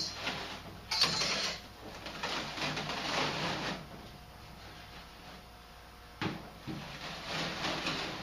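Furnace cabinet insulation being pulled and torn out of the blower compartment, a rough rustling and tearing noise in two long stretches, with a couple of sharp knocks against the sheet metal near the start.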